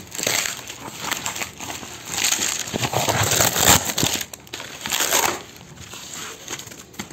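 Clear plastic wrap around a stack of books crinkling and rustling as it is handled, in several bursts, dying down over the last couple of seconds.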